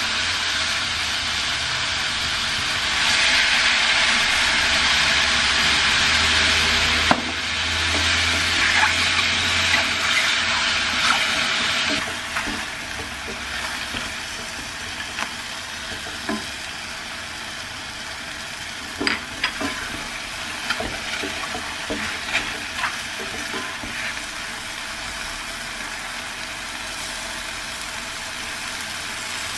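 Garlic mushrooms sizzling as they sauté in a stainless steel skillet, stirred with a wooden spatula that scrapes and taps against the pan. The sizzle is louder for the first twelve seconds or so, then settles lower, with scattered knocks of the spatula.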